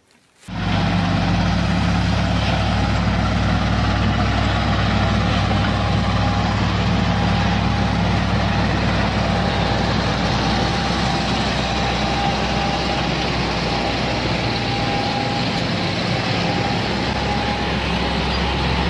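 Heavy diesel engines of a crawler tractor and a log-laden truck running steadily, a low engine drone with a faint thin whine above it. The sound cuts in abruptly about half a second in.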